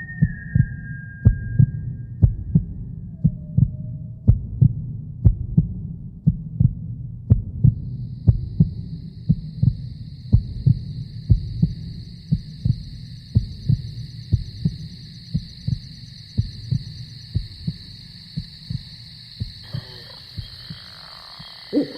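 Heartbeat sound effect: a steady, even rhythm of low thumps. A thin, steady high tone joins about a third of the way in and holds to the end.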